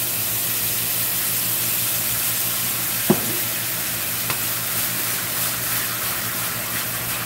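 Carrots sizzling hard in a hot stainless steel skillet the moment maple syrup is drizzled over them in butter, with a steady hiss. Two sharp clicks sound about three and four seconds in, over the low hum of the range hood fan.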